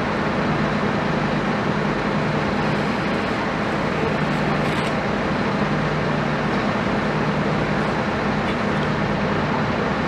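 Heavy engine running steadily at constant speed: an unbroken low hum under an even mechanical noise, with no change in pitch or level.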